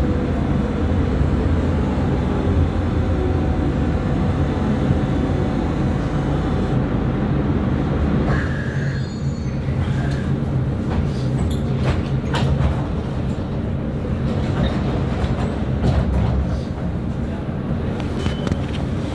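Duewag B80D light-rail car running on its track, heard from inside: a steady low rumble of wheels and motors with a falling motor hum. It gets quieter about eight seconds in, followed by scattered clicks and knocks.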